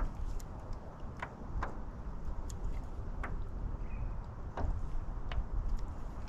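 Low rumble of wind on the microphone, with about seven light, irregularly spaced clicks and taps from handling the rod and baitcaster reel in the kayak.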